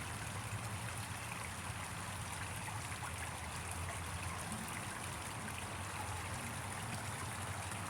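Running water of a stream flowing over rocks: a steady, even trickling rush.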